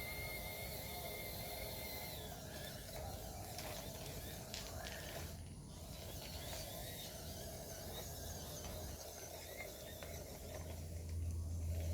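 MN D90 RC crawler's small electric motor and plastic gearbox running faintly as it drives, a thin high whine that stops about two seconds in, followed by faint scattered ticks and clicks.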